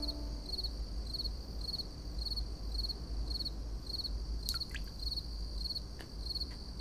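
A cricket chirping steadily, short pulsed chirps about twice a second, over a faint low hum.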